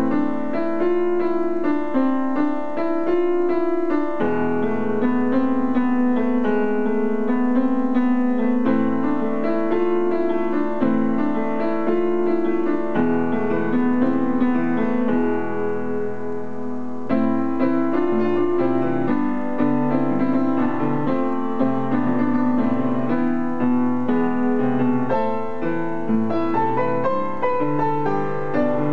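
Solo piano playing an arrangement of a rock song: full chords and melody over a moving bass line. About halfway through, a held chord rings and fades briefly before the next phrase comes in.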